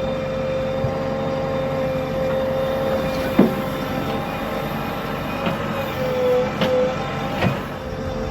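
Heavy diesel engine running steadily, with a sharp knock about three and a half seconds in and a few lighter knocks later.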